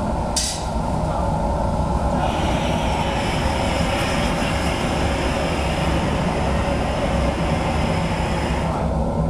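Hose-fed propane torch hissing, turned up about two seconds in and shut down near the end, over a steady low rumble.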